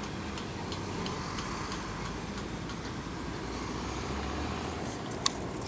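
Gusty wind buffeting the microphone, with faint, even ticking about three times a second and one sharp click about five seconds in.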